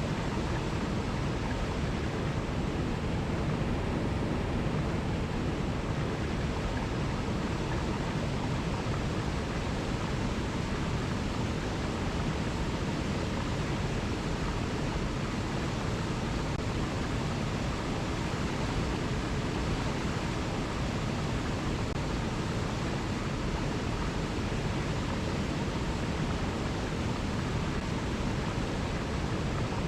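Mountain river rushing steadily over rocky cascades, an even, unbroken water noise.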